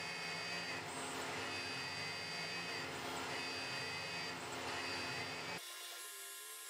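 CNC milling machine cutting brass with a small end mill: a steady machine whir with thin, high whining tones. About five and a half seconds in, the sound suddenly drops in level and loses its low end, carrying on thinner and quieter.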